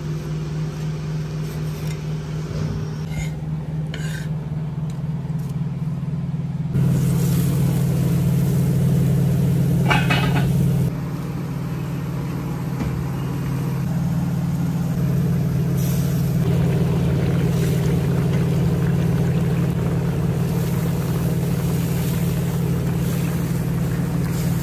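Steady low hum of a motor or fan, stepping louder and softer a few times, with a few faint knocks and clatters on top.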